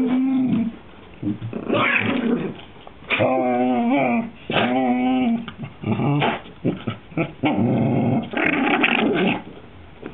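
Dog growling in a string of about six drawn-out growls, each around a second long, during a bout of one dog pestering another to play; the last and longest is rougher.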